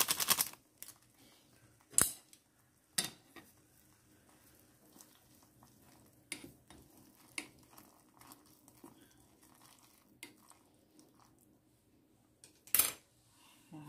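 A plastic flake packet crinkles briefly as it is shaken out. Then wooden chopsticks stir ramyeon noodles in a stainless steel pot, with a few sharp knocks of the chopsticks against the pot. The loudest knocks come about two seconds in and near the end.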